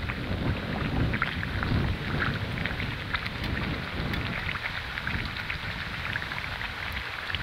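Pakwan deep-frying in hot oil: a steady sizzle dotted with many small crackles and pops, with a low rumble underneath.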